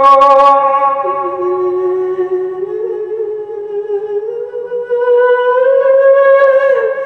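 A monk's voice, amplified through a microphone, drawing out long held sung notes in a melismatic Isan-style verse recitation. The pitch steps down about a second in, climbs slowly through the middle, and falls again near the end.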